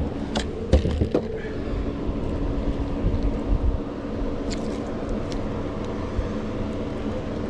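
Steady low hum of a boat motor running, with a few sharp knocks and clicks about half a second to a second in and again around four and a half to five seconds in.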